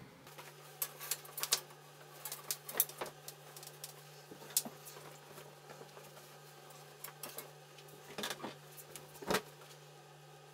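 Laundry being handled and hung on a wire drying rack: cloth rustling with scattered light clicks and taps, the sharpest about nine seconds in, over a steady faint low hum.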